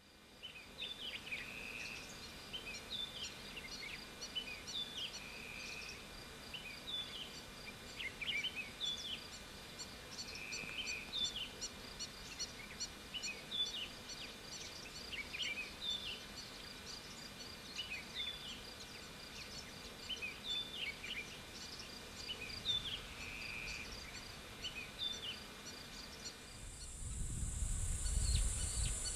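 Wild birds calling: a steady run of short, repeated chirping notes, with a few short buzzy notes mixed in. About two seconds before the end, a steady high hiss and a low rumble set in beneath the calls.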